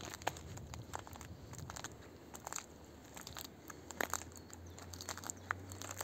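Footsteps crunching on a dry forest floor littered with twigs, needles and wood chips, with irregular snaps and crackles of small sticks breaking underfoot.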